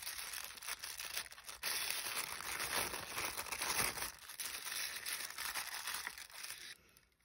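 Thin tissue paper crinkling and rustling as hands unfold it from around a small brass charm; the crinkling stops shortly before the end.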